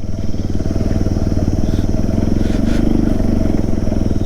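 Bajaj Pulsar NS200's single-cylinder engine running at steady revs while being ridden.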